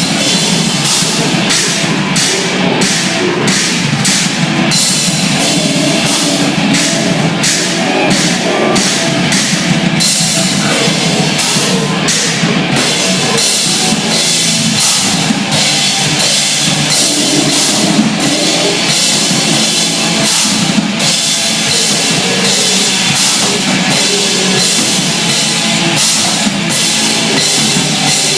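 Loud, fast rock music with a full drum kit: frequent cymbal hits over a dense band sound, with little deep bass.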